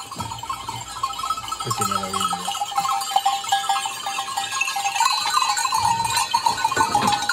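Bells on a flock of goats jangling continuously as the herd walks, with a goat bleating briefly about two seconds in.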